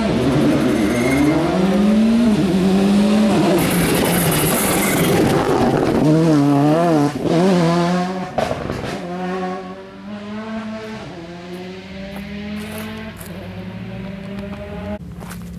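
Rally car on a special stage, its engine revving hard as it approaches and powers through a corner. The revs climb steeply, then rise and fall quickly through gear changes. After that the engine note steadies and fades as the car pulls away.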